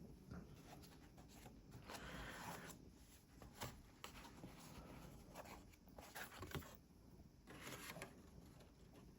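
Faint rustling and rubbing of paper and card packaging being handled, with a few light taps and knocks.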